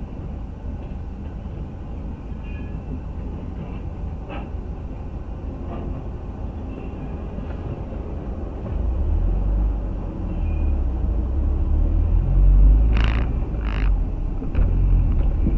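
Freight train rolling past a level crossing: a steady rumble with faint clanks of the wagons. From about nine seconds in a deep diesel rumble swells as the locomotive goes by, and two sharp knocks come close together near the end.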